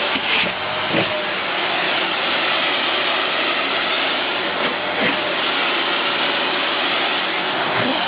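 Vacuum cleaner running steadily with a constant rushing hiss and a faint motor whine, broken by brief knocks about a second in and again about five seconds in.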